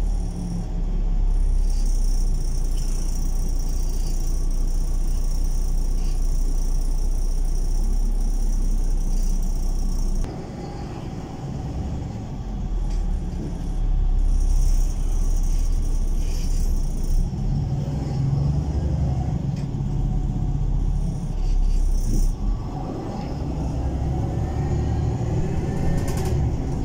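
City bus heard from inside its cabin while moving: a steady engine and road rumble, with a high whine that cuts off abruptly about ten seconds in, when the sound briefly drops quieter.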